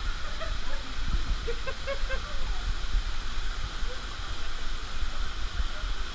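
Steady rushing of a waterfall pouring into a rock pool, with a deep rumble under it.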